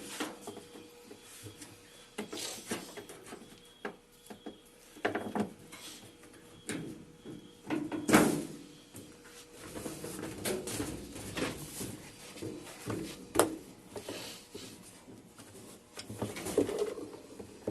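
Irregular knocks, clacks and scrapes of hand-handled parts: a washing machine's suspension rod and damper being taken out and worked by hand, with the loudest knock about 8 seconds in.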